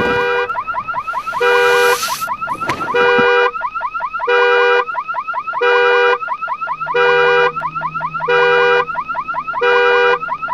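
Car alarm going off, set off by a body falling onto the car: a steady horn-like tone about every one and a half seconds, eight in all, with fast rising chirps in between.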